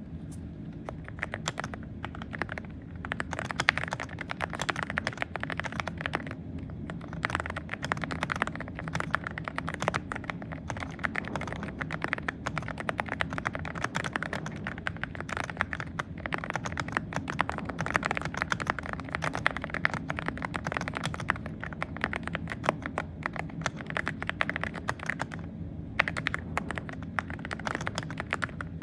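Mechanical keyboard fitted with Akko Rosewood switches, an M1 V5 board, typed on fast and continuously: a dense run of keystroke clacks with brief pauses at about 3 seconds, 6 seconds and 26 seconds in.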